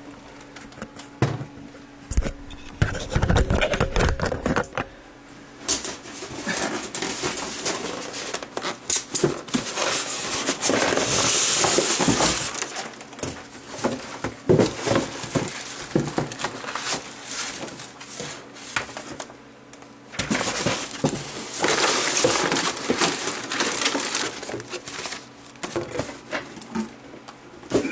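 Cardboard box and packing being handled: a few dull knocks and bumps about two to five seconds in, then repeated rustling and crinkling of plastic packing and paper as the box is rummaged through.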